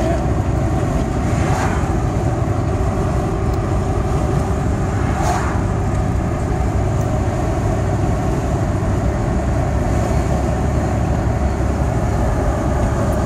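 Steady road and engine noise of a moving car, heard from inside the cabin. Two brief whooshes of oncoming traffic passing, about a second and a half in and again about five seconds in.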